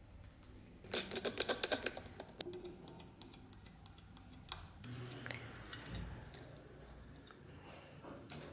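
Handling noise at a workbench: a quick run of sharp clicks and taps about a second in, then scattered light ticks and knocks as the dagger and small tools are handled on the wooden bench.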